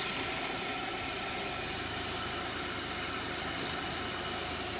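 United Bravo 2019 car engine idling steadily just after starting. The long-crank no-start is cured: the engine runs now that the ECM's burnt main line has been repaired.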